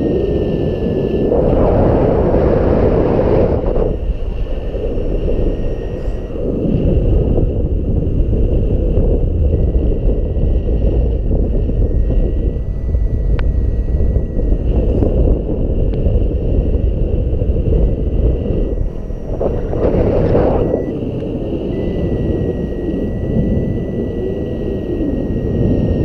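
Strong wind buffeting the microphone: a heavy, continuous low rumble with louder gusts about two seconds in and again near twenty seconds.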